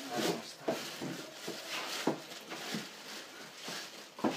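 Handling noises from working a whole pig carcass onto a metal spit in a steel tray: rustling and a few sharp knocks, the sharpest near the end.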